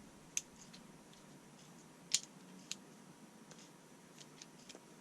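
A few light clicks and taps of small metal tools being handled and set down, the loudest a little past two seconds in, followed by several faint ticks.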